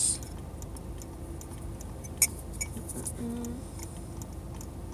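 Light clicks and taps of a small plastic cup-edge figurine being handled and fitted onto the rim of a cup, with one sharp click about two seconds in, over a steady low hum.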